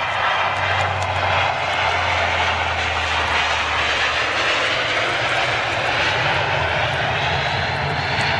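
De Havilland Canada Dash 8 turboprop on its landing roll, engines and propellers running with a steady loud noise and a low hum that rises partway through. Very little propeller pitch reverse is applied.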